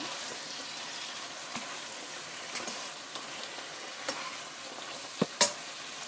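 Pork strips, carrots and onions sizzling in caramel and soy sauce in a stew pot while being stirred with a plastic slotted spatula, with small scraping clicks throughout. Two sharp knocks come a little past five seconds in.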